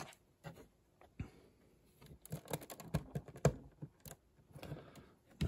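LEGO bricks clicking and rattling as they are handled and pulled apart: a few scattered clicks, then a quicker run of clicks from about two seconds in.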